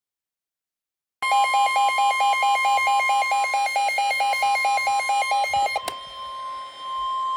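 Weather alert radio sounding its warning alarm: after about a second of silence, a fast pulsing beep, about five a second, sounds over a steady single alert tone, the NOAA Weather Radio warning alarm tone that comes before a new warning. The beeping stops with a click about six seconds in while the steady tone carries on.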